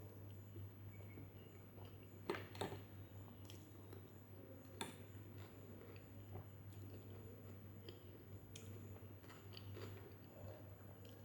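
Close-up mouth sounds of someone chewing a mouthful of chicken biryani, with scattered small clicks and a few sharper ones, the loudest about two seconds in.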